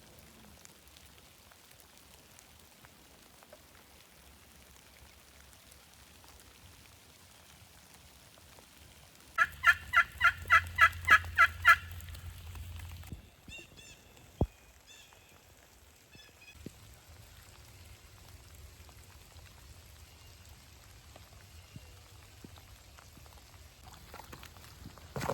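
A run of about ten loud, evenly spaced turkey yelps lasting a little over two seconds, near the middle. Light rain patters faintly behind.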